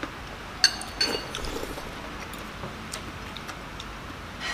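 Metal spoons and forks clinking against ceramic soup bowls during a meal, with one sharp ringing clink just over half a second in and a few lighter taps after.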